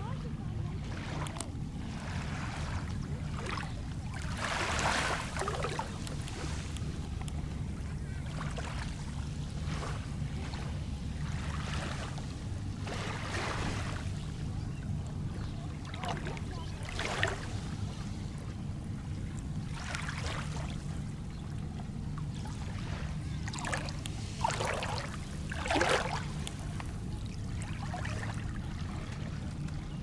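Small waves on Lake Michigan lapping at a pebbly shore, with soft splashes every second or two, the biggest about five seconds in and near the end. A steady low rumble runs underneath.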